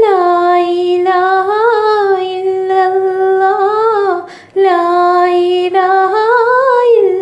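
A woman singing unaccompanied: a wordless melody in long held notes with slight wavers, broken by a short pause about four seconds in.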